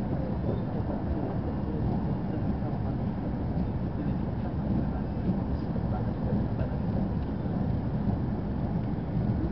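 Chinese high-speed bullet train running at speed, heard from inside the passenger cabin as a steady low rumble of running noise.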